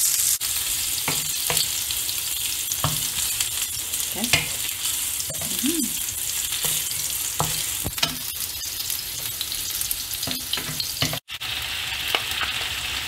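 Diced pork belly sizzling in oil in a frying pan, stirred with a wooden spatula that clicks and scrapes against the pan now and then. After a brief break about 11 seconds in, kimchi sizzles as it is stir-fried in the same pan.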